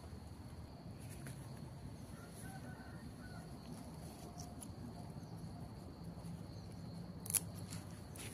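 Steady high-pitched trilling of insects, with a few faint short chirps. A little over seven seconds in comes a single sharp snip of garden scissors cutting a water spinach stem.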